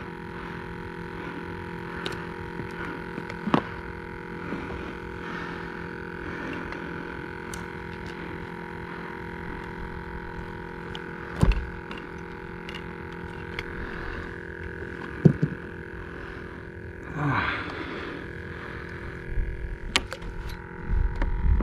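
Steady hum with a few sharp knocks and thumps against a plastic fishing kayak as a fish is brought in and netted.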